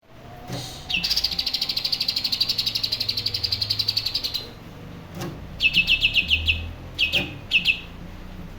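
Cucak ijo (green leafbird) singing: a long, rapid trill of high notes, about ten a second. It is followed by a run of quick falling chirps and then two short bursts of the same chirps.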